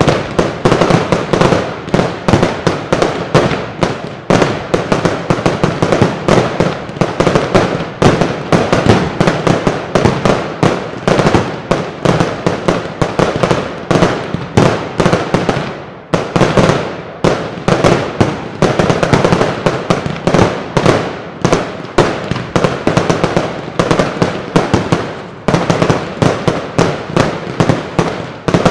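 Professional fireworks display: a dense, continuous barrage of aerial firework bursts and reports, many bangs a second, easing off briefly twice before picking up again.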